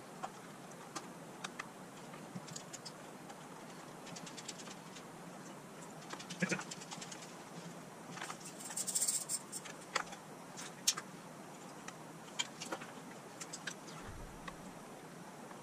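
Screws being tightened by hand into the plastic housing of a Dyson DC43 vacuum: faint scattered clicks and ticks of the screwdriver and plastic parts, with a few quick runs of fine clicking and a brief hiss about nine seconds in.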